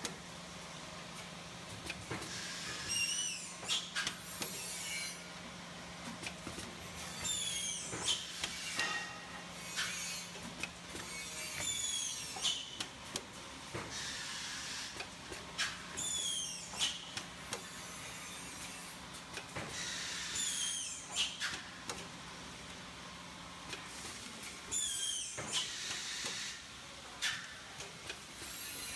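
Thermoforming blister packaging machine running. About every four to five seconds it gives a burst of hiss with a falling squeal, amid clicks and knocks of the mechanism, over a low steady hum that stops near the end.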